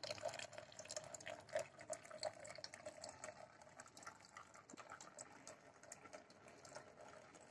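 Faint trickling water with small, irregular drips.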